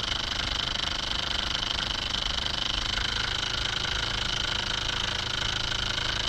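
Homemade generator running: a small DC motor spinning a steel shaft with two half-moon magnets inside a salvaged sump pump stator coil, a steady machine whine with a high tone. A second, lower whine comes in about three seconds in.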